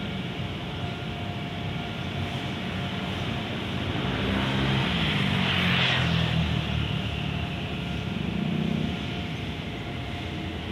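Engine noise of a passing motor vehicle, growing to its loudest about halfway through and fading after, over a steady rumble of traffic.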